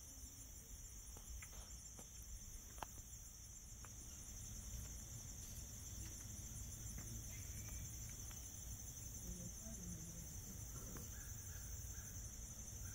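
A steady, high-pitched insect chorus, pulsing finely, over a low rumble. A few faint clicks come in the first few seconds.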